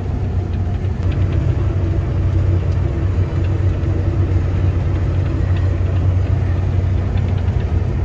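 Claas Lexion combine harvester running under load while cutting wheat, heard from inside the cab as a steady, deep engine drone.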